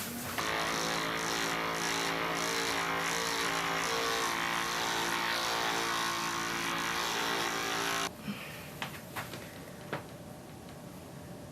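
Percussion massage gun running steadily with an even motor buzz for about eight seconds, then switched off suddenly.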